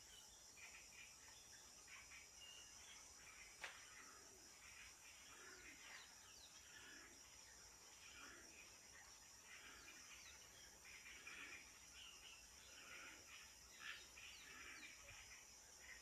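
Faint natural ambience: a steady, high insect drone with scattered bird chirps, and one sharp click a few seconds in.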